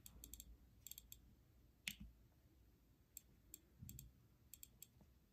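Faint clicks of a second-generation iPod Nano's click wheel as it is scrolled through the menus, coming in short runs of a few ticks, with one fuller click about two seconds in.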